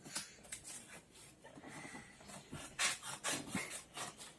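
A cardboard package being opened, likely with scissors: a series of short scraping, rasping strokes that grow louder and closer together in the second half.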